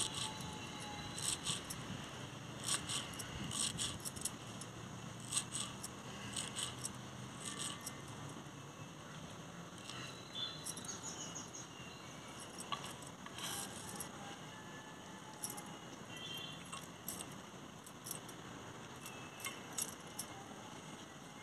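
Knife chopping fresh herbs on a wooden cutting board: short runs of quick taps with pauses between, busier in the first few seconds and sparser later.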